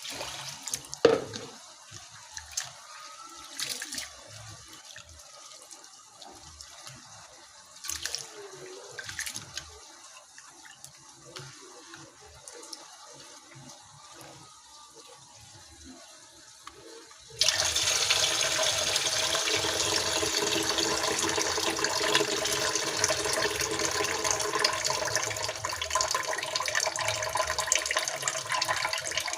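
Water running into a pot to rinse rice, a loud steady rush with a faint ringing tone from the filling pot, starting after about seventeen seconds of quiet handling, small knocks and faint sloshing.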